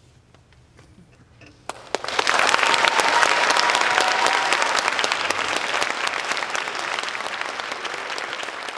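Audience applause with dense clapping. It breaks out about two seconds in after a brief hush and eases off gradually.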